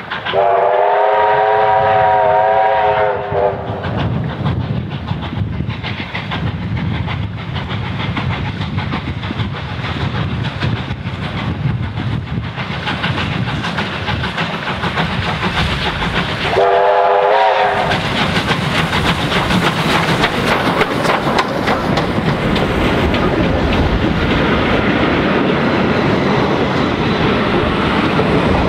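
Victorian Railways J-class 2-8-0 steam locomotive J549 sounding a long chime-like whistle at the start and a short one about seventeen seconds in, its steam exhaust beating louder as it approaches. Near the end the carriages roll past with wheel clatter on the rails.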